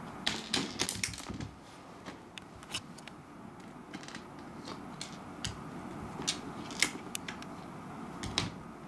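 Sharp irregular clicks and taps of a small hard dried persimmon seed knocking and skittering on a wooden floor as a cat bats it with its paws: a quick cluster in the first second and a half, then scattered single taps.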